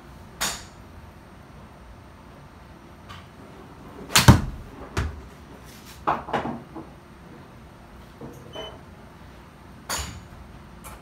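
A golf club striking the ball in an indoor simulator bay: one sharp crack about four seconds in, followed within a second by a dull thump as the ball hits the impact screen. A few quieter knocks come before and after.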